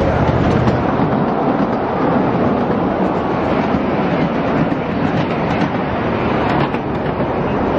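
Ride-on miniature railroad train rolling along its track: a steady rumble and clatter from the wheels, with occasional faint clicks.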